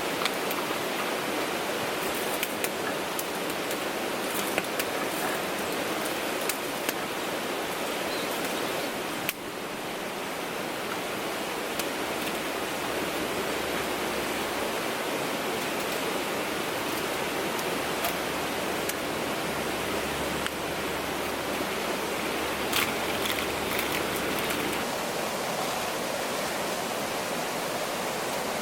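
Steady rushing noise, with scattered faint clicks and a brief dip about nine seconds in.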